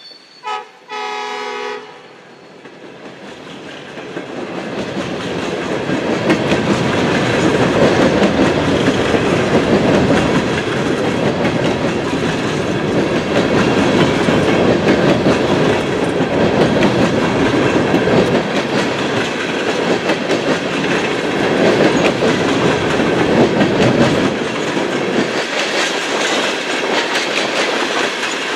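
A freight locomotive's horn ends in two short blasts in the first two seconds. Then the rumble and clatter of coal hopper cars rolling past on the rails builds up and carries on steadily.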